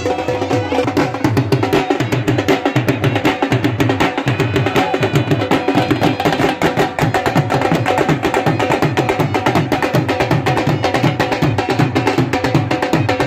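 Punjabi dhol drums played live in a fast, steady beat.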